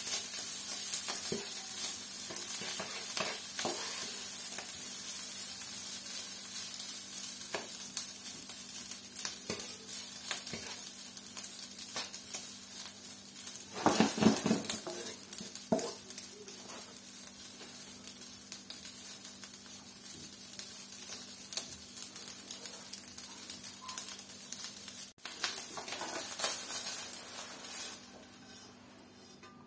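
Cold cooked white rice sizzling as it fries in a non-stick frying pan, turned and scraped with a wooden spatula, with a louder flurry of stirring about halfway through. The sizzle dies away near the end as the pan is lifted to tip the rice out.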